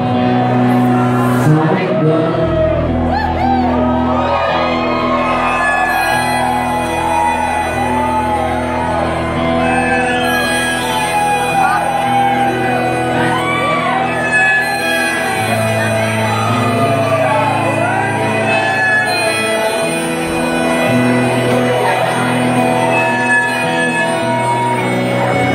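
Live rock band playing an instrumental passage led by electric guitar, its notes bent up and down, over sustained bass notes that change every few seconds, in a large hall.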